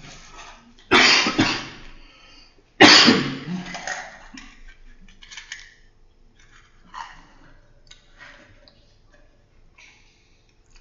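A person coughing twice, about two seconds apart, followed by faint scattered small noises.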